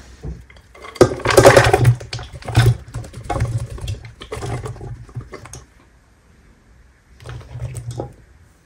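Kitchen knife chopping quickly on a wooden cutting board, in several bursts of rapid strokes with short pauses between them; the longest and loudest burst comes about a second in.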